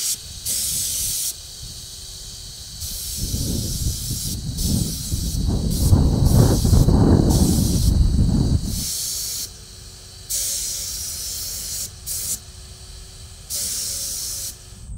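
HVLP spray gun hissing in repeated bursts of about a second each as the trigger is pulled and released, spraying paint, with a faint steady hum between some bursts. A loud, rough low rumble covers several seconds in the middle.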